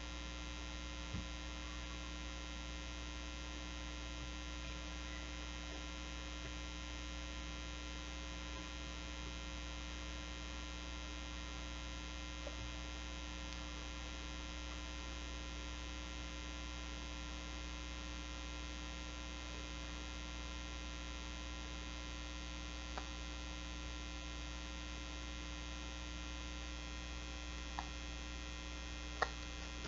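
Steady electrical mains hum, a constant drone with many fixed overtones, and a few faint soft ticks scattered through it.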